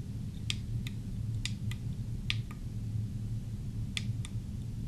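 Sharp clicks of remote-control buttons being pressed to step through an on-screen menu: about seven clicks, some in quick pairs, over a low steady hum.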